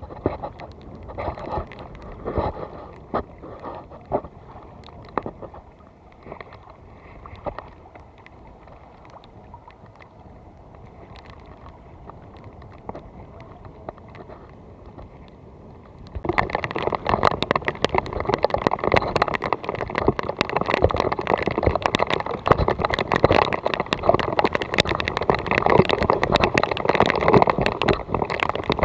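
Shallow seawater sloshing and splashing, with many small crackles; about sixteen seconds in it suddenly becomes much louder and denser.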